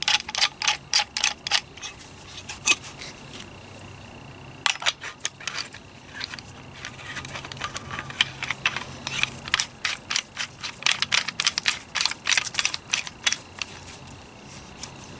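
Rapid metallic clicking and clinking in several bursts, several sharp clicks a second, as the hatchet multi-tool's metal parts are handled.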